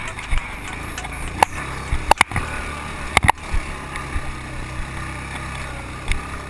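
ATV engine running steadily on a rough dirt trail, with several sharp knocks and rattles as the machine jolts over bumps, the loudest a cluster about two and three seconds in.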